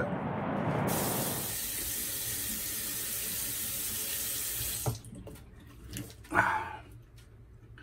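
Bathroom tap running into the sink for about five seconds, then shut off suddenly, followed by a few faint splashes and drips as the face is rinsed.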